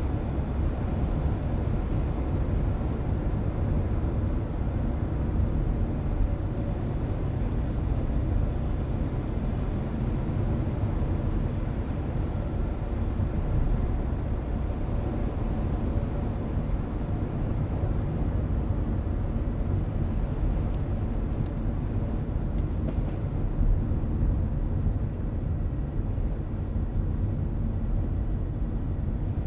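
Steady road and engine rumble heard inside a moving car's cabin, low and even throughout, with a few faint ticks now and then.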